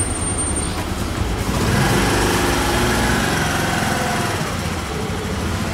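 Motor scooter's small engine idling steadily.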